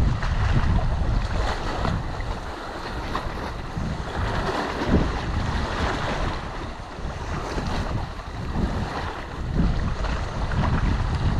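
Wind buffeting the microphone in gusts, rising and easing every few seconds, over choppy water lapping.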